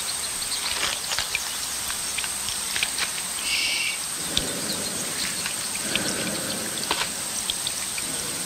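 Forest field recording: a steady hiss with a high whine and scattered ticks, and two short, low calls about four and a half and six seconds in. This is the unexplained 'creature' sound, which, if the recording is genuine, could be a moose in rut.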